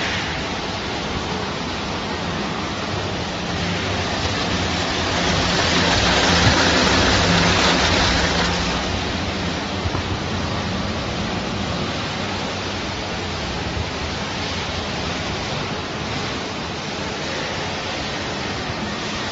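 Steady rushing noise of factory machinery, with a faint low hum underneath. It swells louder for a few seconds about five seconds in, then settles back.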